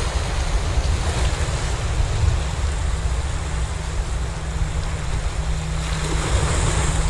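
Small waves washing and splashing over shoreline rocks, with wind buffeting the microphone in a steady low rumble.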